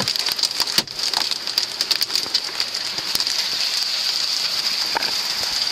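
Hailstorm: hailstones coming down and striking hard surfaces, a dense, steady patter of many small clicks over a continuous hiss.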